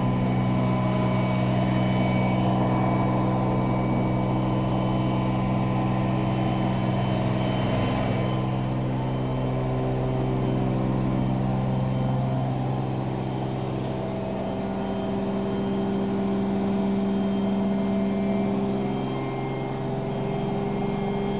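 LG 10 kg front-load washing machine running, its motor giving a steady hum of several held tones that shift a few times, with a hiss that fades about eight seconds in. It is a noise the owner puts down to a motor problem.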